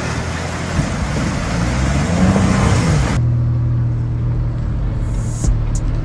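A 4WD's engine revving and rising in pitch over a broad hiss, then, after an abrupt change about three seconds in, an engine running steadily at low pitch, with a few sharp clicks near the end.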